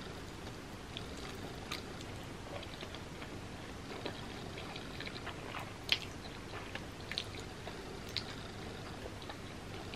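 A person chewing and slurping a mouthful of black bean noodles, with short, wet clicks scattered throughout; the sharpest comes about six seconds in.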